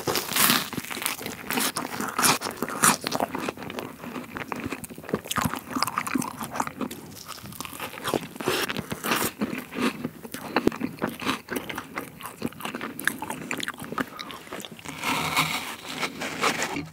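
Close-miked crunching and chewing of strawberry pavlova: its crisp meringue base with whipped cream breaking between the teeth in a dense run of small crunches.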